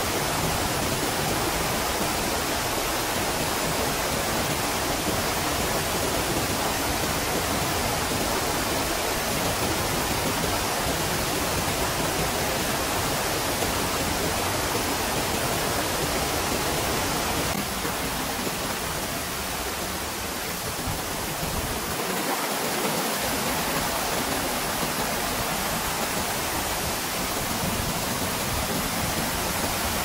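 Waterfall cascading down a tall rock face: a steady rush of falling water, a little quieter for a few seconds about two-thirds of the way through.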